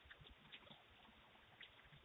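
Near silence: faint background hiss with a few soft ticks.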